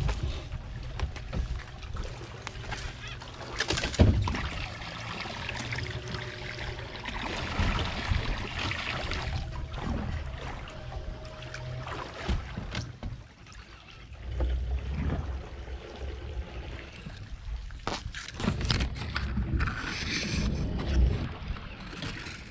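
Water sloshing and splashing around a small boat being worked through shallow water, with a steady low rumble and a few sharp knocks, the loudest right at the start and about four seconds in.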